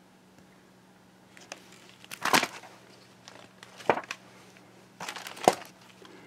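Rustling and crinkling of a picture book's paper pages being turned and handled, with three louder bursts about two, four and five and a half seconds in, over a faint steady hum.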